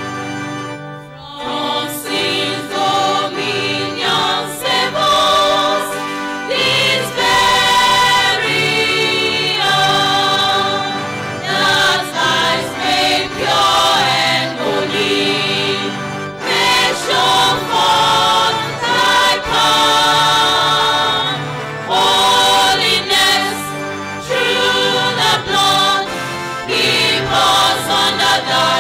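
Mixed church choir singing a gospel hymn through microphones, in phrases with short breaths between them, over a sustained keyboard-organ accompaniment.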